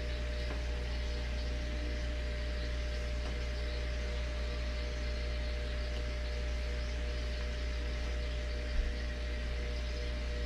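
Steady low mechanical hum with an even hiss and a thin steady tone over it, with one brief low knock near the end.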